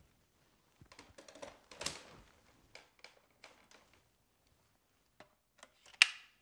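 Plastic clicks and rattles from a Shark Rotator Powered Lift-Away vacuum's handle and Truepet motorized hand tool being handled. Near the end there is one sharp, loud snap as the hand tool latches onto the handle.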